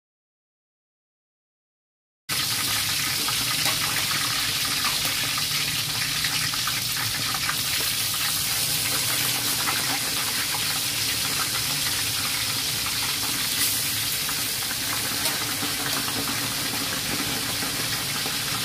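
About two seconds of dead silence, then pieces of snakehead fish frying in hot oil in a wok: a steady, dense sizzle that starts abruptly and keeps on.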